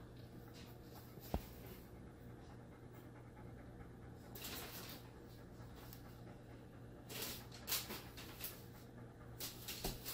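A dog panting softly in a few short bouts of breathing, with a single sharp click about a second in.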